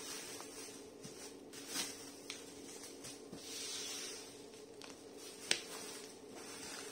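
Black plastic bubble wrap rustling and crinkling as it is folded and smoothed by hand over a cardboard box, with a few short crackles, the sharpest about five and a half seconds in.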